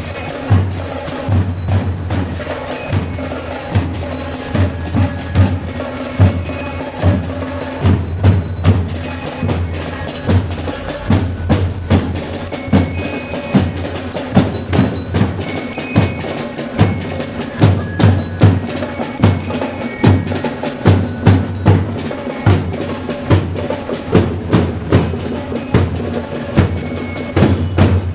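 Marching school band playing a drum and bell-lyre march: bass drum and snare drums beat a steady rhythm, about two strokes a second, under ringing glockenspiel notes.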